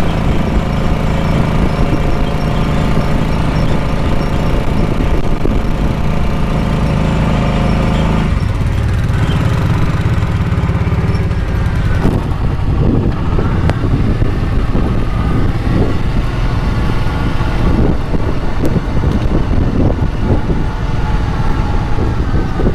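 Four-wheeler (ATV) engine running steadily while riding, its note changing about eight seconds in and again about twelve seconds in.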